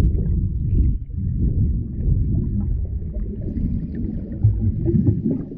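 Muffled underwater rumble of water moving around a diver's action camera in its waterproof housing, with faint scattered clicks and knocks.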